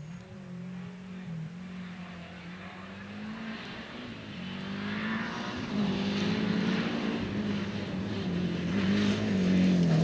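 Rally car engine approaching on a gravel stage, getting steadily louder as it revs up and down through a corner, with gravel and dust hissing from the tyres. It is loudest near the end, where the engine note starts to drop.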